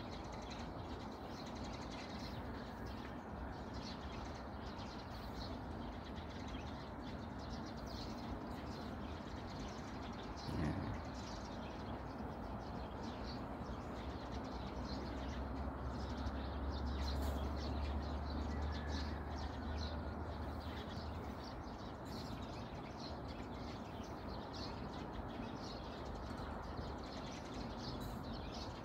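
Sparrows chirping faintly here and there over a steady outdoor background hiss, with a low rumble for several seconds in the middle.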